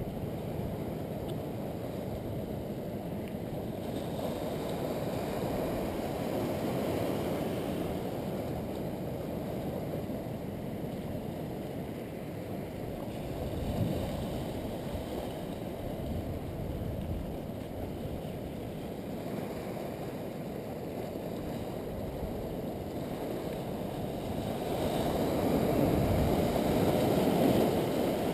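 Muffled, steady rush of ocean surf washing over rocks, swelling louder near the end.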